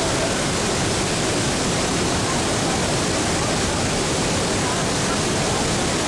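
Manavgat waterfall and the churning river below it: a loud, steady, even rush of falling water.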